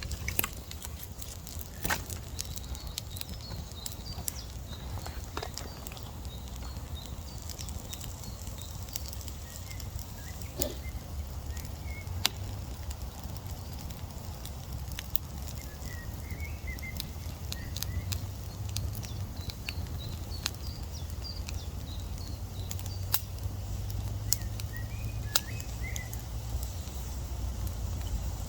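Wood campfire crackling, with irregular sharp pops over a steady low rumble. Faint bird chirps come and go.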